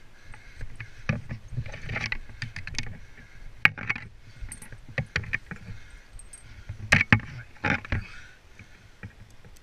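Tree-climbing gear in use on a rope ascent: irregular metallic clinks and clacks from the climbing hardware, with rope and gloves rustling and scraping on bark, and a few sharper clacks along the way.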